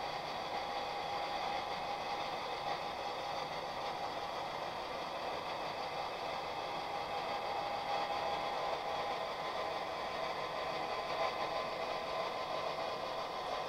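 HO-scale model train running along the track: a steady whirring hum of the locomotive motor and the cars' wheels rolling on the rails.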